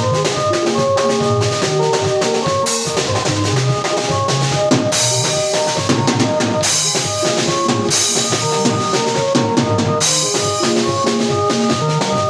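A band playing: a drum kit with kick, snare and cymbals keeps a steady beat under a keyboard playing held chords.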